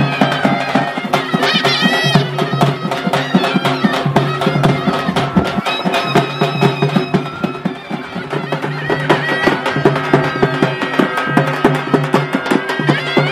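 Traditional folk band music: a reed wind instrument plays a melody over a steady held low tone, with rapid, continuous beating of large double-headed drums.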